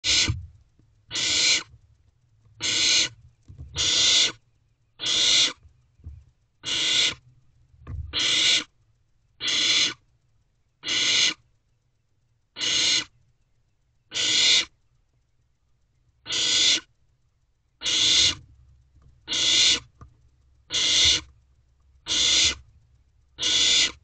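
Barn owlets hissing: a long series of rasping, breathy hisses, each about half a second long, repeated steadily about once every second and a half. This is the barn owl chick's begging 'snore' call for food.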